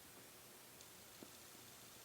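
Near silence: faint room hiss with two tiny clicks, one nearly a second in and one just over a second in.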